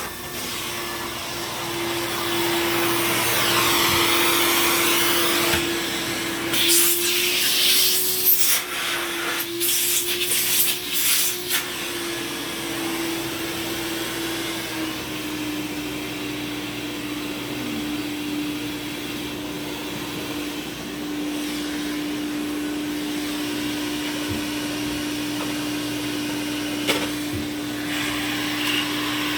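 Hoover Supremacy S3625 canister vacuum running, with a steady motor whine that drops slightly in pitch about halfway through. There are several loud bursts of noise between about 6 and 12 seconds in.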